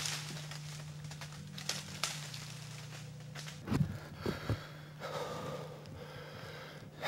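A bowhunter breathing hard and excitedly close to the microphone just after the shot, with rustles and a few low thumps from handling the camera, over a steady low hum.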